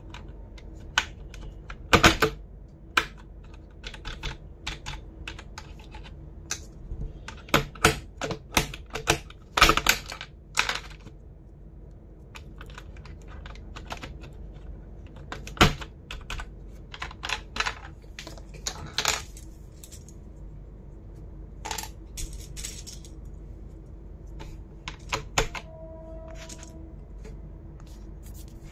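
Computer keyboard keys clicking and clacking in irregular clusters rather than a steady typing rhythm, with a few sharper, louder clacks along the way.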